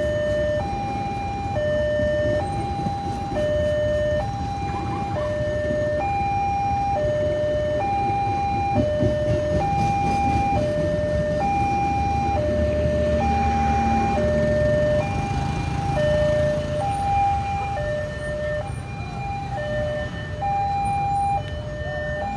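Railway level-crossing warning alarm sounding its two-tone electronic signal, a high note and a low note alternating about once a second each, without a break. Underneath runs the low rumble of a passenger train passing the crossing and of waiting road traffic.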